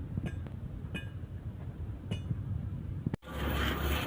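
A few short metallic clinks with a ringing overtone, over a steady low hum. About three seconds in, the sound cuts out abruptly and gives way to a louder, denser din.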